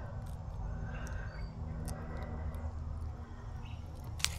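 A few faint bird chirps over a steady low rumble, with one sharp click near the end.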